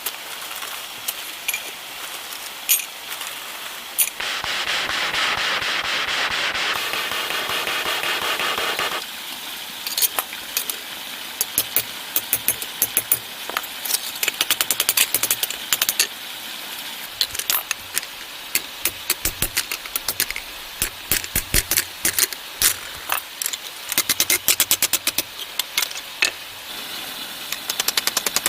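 Sharp hammer strikes in quick runs, after about five seconds of steady rushing noise near the start.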